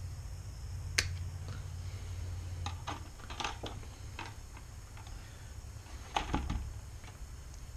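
Honeycomb grille mesh and a plastic grille insert being handled and fitted together: a sharp click about a second in, a run of light clicks and rattles, then a louder knock a little after six seconds, over a low hum.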